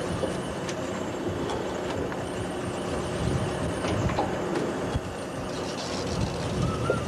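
Net hauler and engine of a gill-net fishing boat running steadily while the net comes aboard over the hauler drum, with a few short knocks and clicks.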